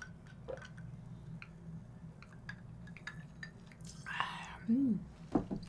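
Soft wet mouth clicks and swallowing while drinking from a glass, then a breathy exhale about four seconds in, a short voiced hum that rises and falls, and a sharp click near the end.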